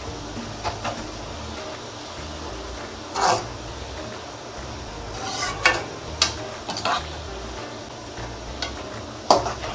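Thinly sliced onions frying in hot oil in a steel kadhai with a steady sizzle, just starting to turn golden. A slotted steel spoon stirs them, scraping and clinking against the pan at irregular moments.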